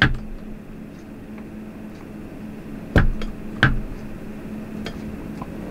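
Packaging being handled during an unboxing: a few short knocks and taps, the loudest two about three seconds in, a little over half a second apart, over a steady low hum.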